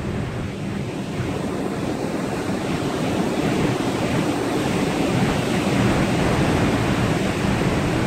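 Storm wind and heavy seas rushing against a ship heading into the waves: a loud, steady rush that swells a little midway.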